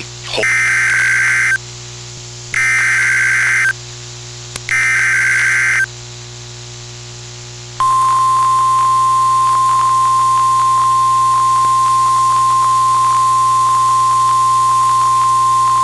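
Emergency Alert System activation on NOAA Weather Radio: three bursts of the SAME digital header, each about a second long with a second's gap between them, then a steady 1050 Hz warning alarm tone starting about eight seconds in. It marks the start of a severe thunderstorm warning broadcast.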